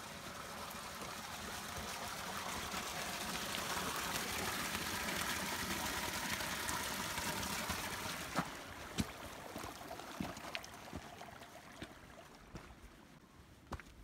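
Glacial meltwater falling in a thin stream off the edge of an ice wall and splashing into a pool below, a steady rushing trickle that fades over the second half. Footsteps crunching on loose stones come in from about eight seconds in.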